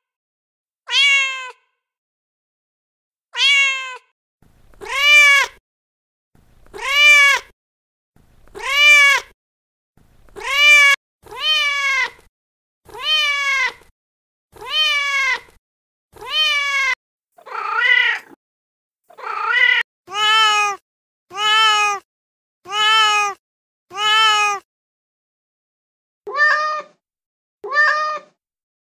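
Domestic cat meows played one after another from a cat-sound app, each a short call that rises and then falls in pitch, about one every one to two seconds. Past the middle the meows turn lower, and near the end come shorter meows from another cat.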